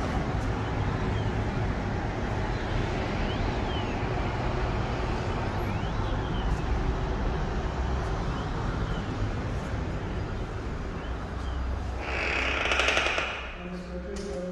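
Wind buffeting the phone's microphone: a loud, rumbling rush that comes and goes in gusts, with a brief louder hiss near the end before it drops.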